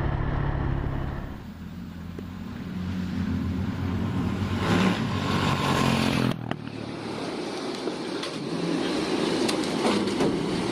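A vehicle engine running steadily. About six seconds in the sound changes abruptly to a rougher, noisier rumble with scattered sharp knocks.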